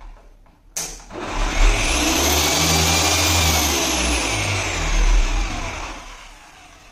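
Electric car polisher fitted with a Rupes blue coarse foam cutting pad, running compound over a car's hood paint. It clicks on just under a second in, runs loudly for about four seconds with a high motor whine that rises and then falls, and winds down near the end.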